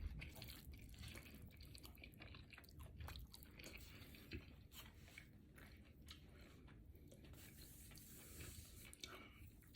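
A person chewing a burrito close to the microphone: faint, irregular wet mouth clicks and soft crunches, with a slightly louder click about four seconds in.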